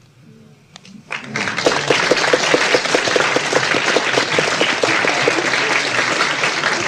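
Audience applauding, heard from among the crowd on a cassette recording. A few scattered claps come about a second in, then the applause swells quickly into a steady, dense clapping.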